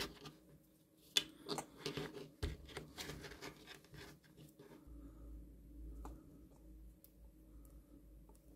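Faint handling noise: a run of small sharp clicks and rustles as wires are pushed into a plastic wire quick connector and an LED bulb's driver board is handled, busiest in the first few seconds.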